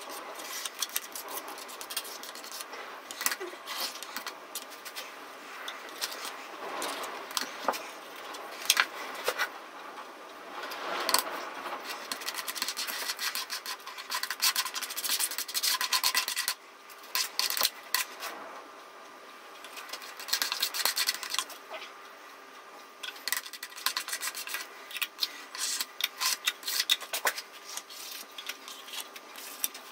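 Contact adhesive being spread with a small hand spreader over plywood strips and a board: short, irregular scraping and rubbing strokes with brief pauses.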